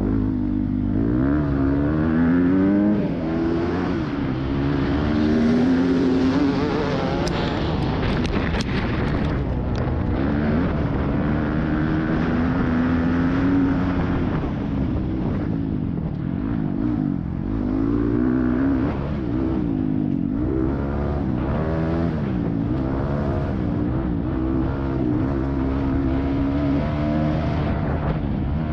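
Yamaha YZ250F four-stroke single-cylinder dirt bike engine under hard acceleration, its pitch climbing and dropping again and again as it revs up through the gears and shifts. A few sharp clicks come about eight seconds in.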